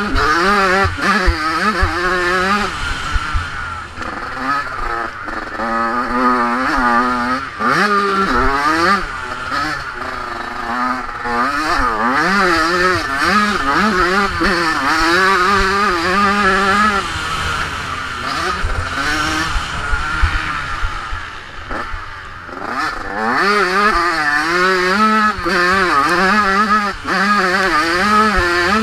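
Motocross bike engine revving hard, its pitch rising and falling over and over as the rider accelerates, shifts and backs off, easing briefly about three quarters of the way through. Wind rush and knocks from the bumpy track come through the helmet-mounted camera.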